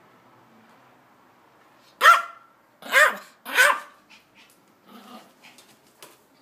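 Yorkshire terrier barking: three sharp barks beginning about two seconds in, the last two close together, then a few fainter sounds and clicks as the dog runs off.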